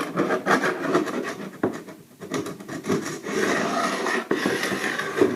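Carbide scraper scraping dried paint spots off an oak floor in a run of short, light strokes, with a brief pause about two seconds in.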